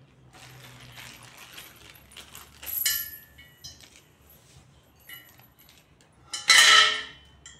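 Metal frame pieces of a flat-pack shoe bench scraping and clinking against each other and the tiled floor as they are handled: a rattling scrape at first, a clink that rings briefly about three seconds in, and the loudest ringing clink about six and a half seconds in.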